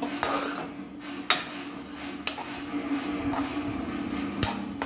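Steel spatula scraping and knocking against a metal kadai as egg noodles are stir-fried, several sharp strokes about a second apart over a steady low hum.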